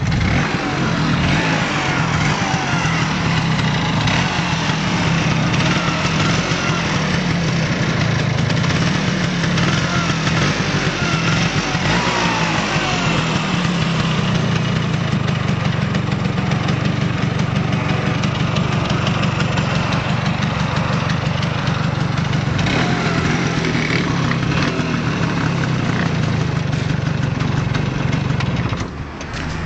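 Vespa PX 200 scooter's single-cylinder two-stroke engine idling steadily through its stock exhaust, dropping briefly in level near the end.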